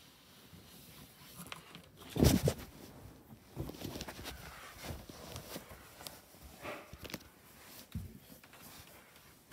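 A heavy thump about two seconds in, followed by rustling and scattered light knocks of people moving about in a small room.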